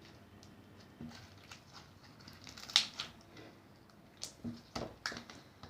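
Slime being kneaded by hand: irregular sticky clicks and squelches, the sharpest about three seconds in and several more close together near the end.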